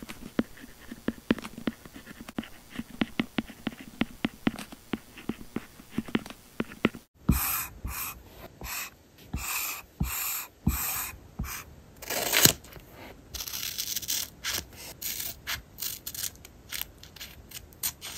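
A pen writing on paper close up, its nib making quick short scratching strokes. About seven seconds in, the sound cuts abruptly to longer, louder, hissier scratching strokes and rustles.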